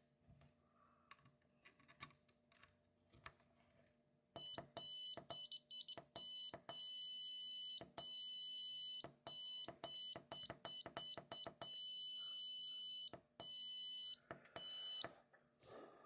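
Small electronic buzzer driven by an Arduino Nano, sounding a shrill high tone in irregular bursts as a push button is pressed and released. First come several quick beeps, then longer holds of a second or two, starting about four seconds in. Before the buzzing there are only faint clicks of handling.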